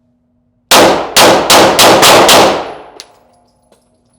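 Six rapid pistol shots from a Glock, fired as a bill drill: a first shot, then five more in quick succession about a third of a second apart, each echoing in an indoor range. A short sharp click follows about half a second after the last shot.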